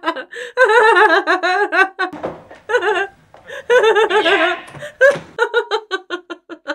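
A woman laughing hard in long, wavering bursts. It breaks off briefly about halfway, then starts up again.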